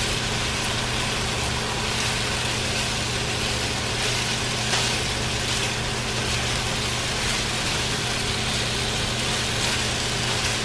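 Diced potatoes sizzling in a skillet of steak drippings and being stirred with a silicone spatula, a steady frying hiss over a constant low hum.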